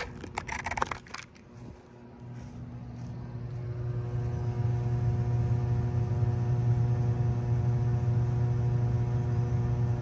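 Bard 3-ton wall-mounted heat pump running in cooling mode: a steady low electrical hum with a ladder of overtones that grows louder over the first few seconds and then holds even. There are brief scuffing noises at the very start.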